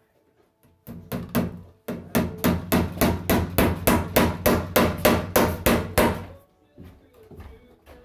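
Claw hammer striking a wooden wall stud, most likely driving a cable staple over electrical cable. A few blows come first, then a short pause, then a fast, even run of about four blows a second that stops about six seconds in.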